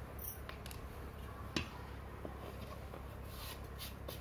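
Faint steady room noise with a single light knock of a kitchen utensil about a second and a half in, and a faint soft rustle near the end.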